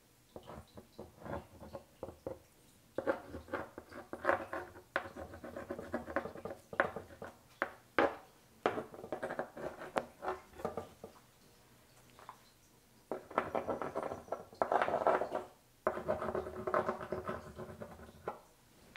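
Stabilo Woody crayon scribbling and scratching across the waxy surface of a cold wax and oil painting: clusters of quick strokes with short pauses, the longest about twelve seconds in.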